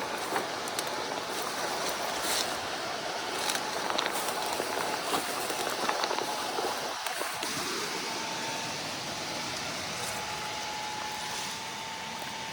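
Rushing rainwater runoff: a dense, steady hiss with scattered sharp ticks, and a faint steady tone entering about two-thirds of the way through.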